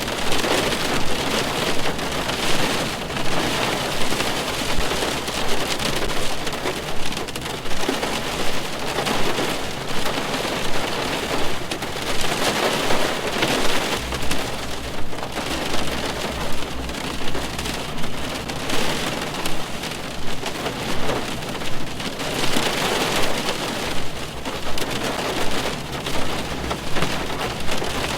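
Rain drumming on a car's roof and windows, heard from inside the car: a steady hiss of drops that swells in regular pulses about once a second.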